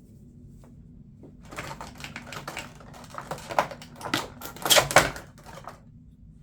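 Close-up handling noise: a quick run of light clicks, taps and rustles, starting about a second and a half in, growing loudest near the end, then stopping.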